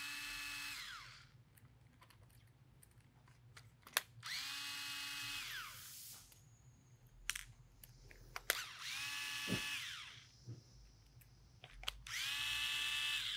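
Small cordless electric screwdriver running in four short bursts, each a whine that rises as the motor spins up, holds, and drops as it stops, with light clicks of handling in between; it is backing out screws.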